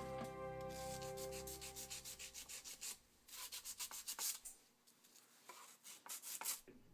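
Quick back-and-forth hand rubbing on the aluminium face of a Segway i2 gearbox housing, rapid scratchy strokes in several short spells. Background music fades out over the first couple of seconds.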